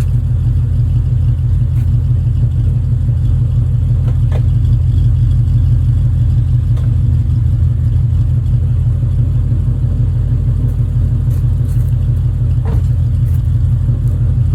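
2011 Mustang GT's 5.0-litre V8 idling steadily through aftermarket long-tube headers and an MBRP race exhaust: a loud, even low exhaust rumble with no revving, the engine still warming up from a cold start.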